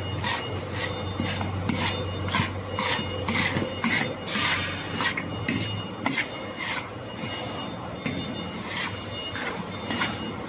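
Long metal spatulas scraping and scooping syrup-coated puffed rice around a large steel wok, an irregular rasping stroke about twice a second, thinning out in the last few seconds. A low steady hum sits under the first half.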